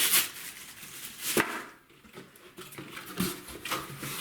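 Firework packaging being handled: a crinkle of plastic wrapping, then a sharp knock and a few lighter taps as packs are set down and picked up.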